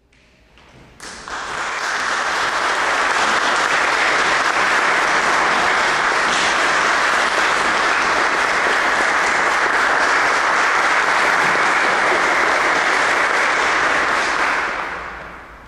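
Audience applauding. It starts about a second in, holds steady and dies away near the end.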